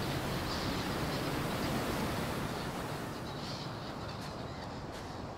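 Outdoor ambience of a steady rush of wind, with faint bird calls in the first half; the wind eases a little partway through.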